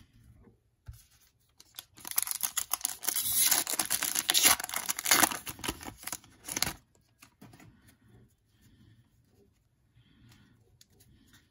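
Foil wrapper of a 2019 Panini Contenders football card pack being torn open and crinkled, a dense crackling that starts about two seconds in and lasts about five seconds. Then faint rustles as the cards are handled.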